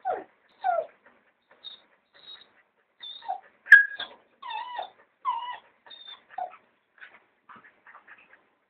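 Australian cattle dog whining and yipping in a run of short calls that slide down in pitch, with one sharper, louder yip near the middle, trailing off into softer whimpers.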